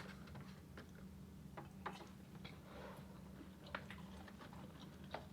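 Faint chewing with scattered small mouth clicks, someone eating close to the microphone over a low steady room hum.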